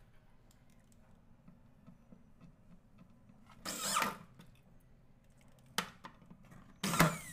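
Electric drill driving screws to fix a ball-bearing drawer slide to the cabinet side panel. There are two short bursts of the motor, one about three and a half seconds in and another starting near the end, with a small click between.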